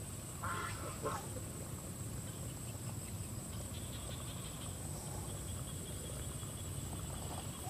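Quiet pond-side ambience: a low steady rumble, with two short animal calls about half a second and a second in.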